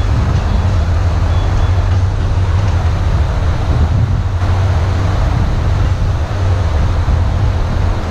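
A vehicle engine, likely farm machinery, running steadily with a deep, even hum.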